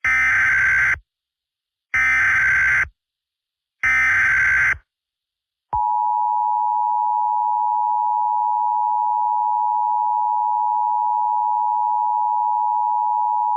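Emergency Alert System tones: three screeching one-second bursts of SAME header data about a second apart, then the EAS two-tone attention signal, a steady dual tone held for about eight seconds.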